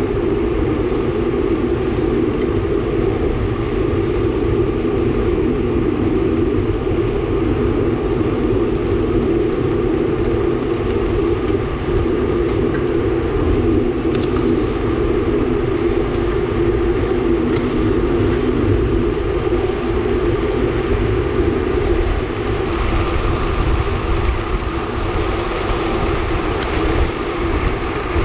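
Steady rush of wind and tyre noise on a bicycle-mounted camera moving at about 40 km/h in a pack of road cyclists, with a low rumble and no pauses.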